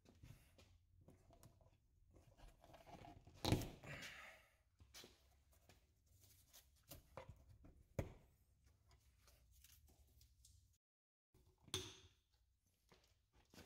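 Faint scattered clicks and knocks of hands handling tools or materials, with one louder knock about three and a half seconds in followed by a short rustle, and another sharp click near eight seconds.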